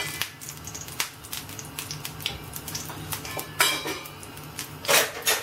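Kitchen utensils and containers clinking and tapping beside a frying pan of heating oil: scattered sharp clicks, with two louder clatters a little after halfway and near the end, over a low steady hum and the faint crackle of the oil.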